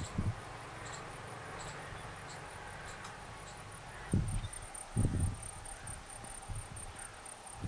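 An insect chirping outdoors in a fast, even, high-pitched pulsing rhythm, with two short low rumbles about four and five seconds in.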